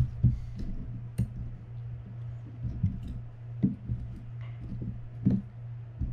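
Small metal fishing-reel parts and hand tools clicking and knocking irregularly as the Penn Senator 113H reel is handled on the bench, over a steady low hum.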